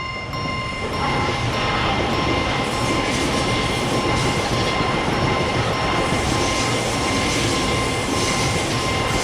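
Japanese level-crossing warning bell ringing with steady high tones while a train runs past through the crossing. The rumble of the passing train builds about a second in and eases off near the end.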